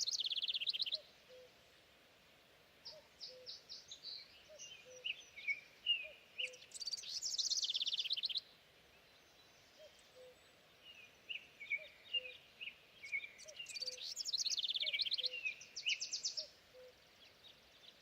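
Songbird singing in three long phrases of fast, high trills and chirps, with short pauses between them. Under it, a faint low note repeats about once a second.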